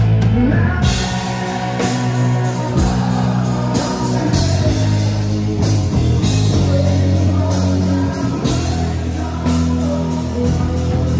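A live rock band playing loudly, with electric guitar, a drum kit and a singer.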